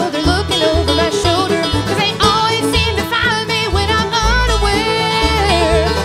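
Live acoustic bluegrass band: a woman's lead vocal over strummed acoustic guitar, banjo rolls and a walking upright bass line.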